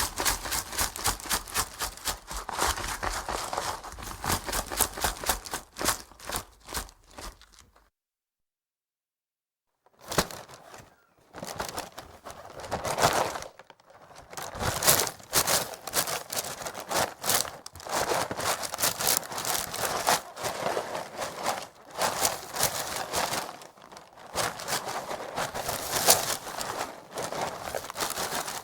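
Full cardboard cereal box of corn flakes in a plastic inner bag being shaken, the flakes rattling and the bag crinkling in quick, dense strokes. About 8 seconds in it stops dead for a couple of seconds, then the shaking and crinkling resume in uneven bursts.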